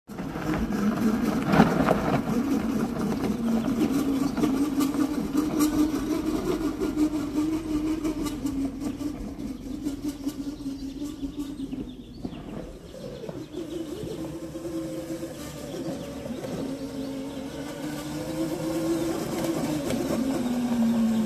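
Electric-converted quad ATV driving on a dirt trail: a steady motor and drivetrain whine that rises in pitch as it pulls away, grows fainter in the middle as it goes off down the trail, and grows louder again near the end as it comes back, its pitch dropping as it slows.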